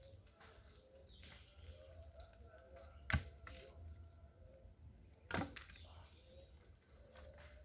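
Dry twigs cracking twice, about two seconds apart, as kindling is laid for a fire.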